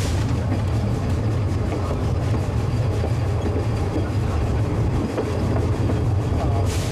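Narrow-gauge train running along the track: a steady low rumble with faint clicking from the wheels on the rails.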